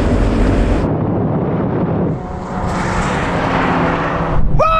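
Performance cars accelerating flat out in a quarter-mile drag race: a loud, dense rush of engine and wind noise. It changes abruptly about a second in and again about two seconds in, then drops away near the end.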